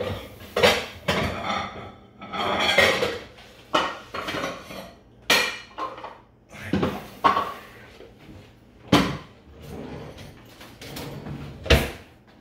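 Kitchen bowls and utensils being handled: a bowl and spoons clattering and knocking on the counter in a string of separate knocks and clinks.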